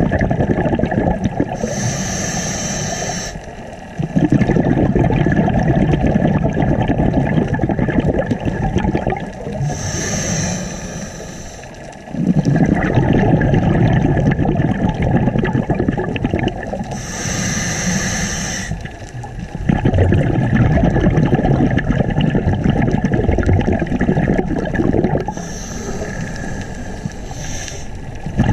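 Scuba diver breathing through a regulator underwater: four slow breaths, each a short hiss of inhaling followed by several seconds of bubbling exhaust as the breath is let out.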